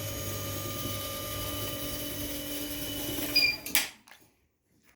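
Stairlift drive motor running at a steady speed, a hum with a thin whine over it, then stopping with a sharp click just under four seconds in.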